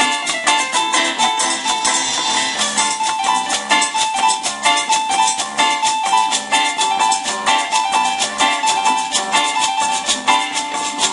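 Live tropical cumbia band playing an instrumental passage: a steady, fast dance rhythm of scraped and shaken percussion, with a metal güiro scraping, under a repeated high melodic line.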